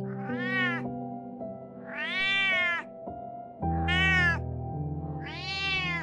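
Domestic cat meowing four times, each call just under a second long, rising and then falling in pitch.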